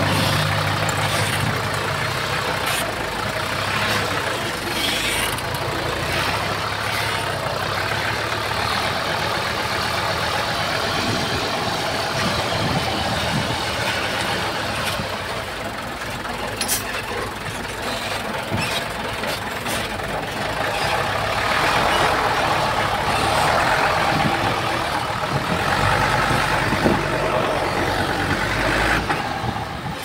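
Diesel engines of heavy earthmoving machinery running steadily, with scattered clanks and knocks.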